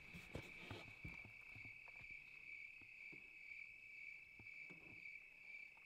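Crickets trilling steadily and faintly, with a few faint knocks.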